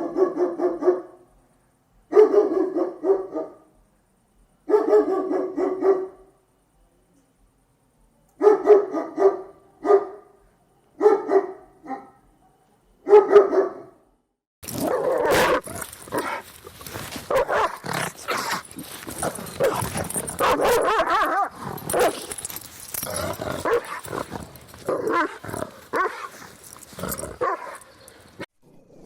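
Angry dogs barking. At first the barks come in rapid bursts about a second long with short silences between. About halfway through, a noisier recording takes over, with continuous, overlapping barking.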